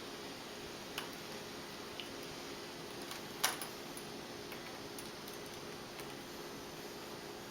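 A few small, sharp clicks and taps of hands handling the plastic parts of a laptop's screen assembly, the loudest about three and a half seconds in, over a faint steady hum.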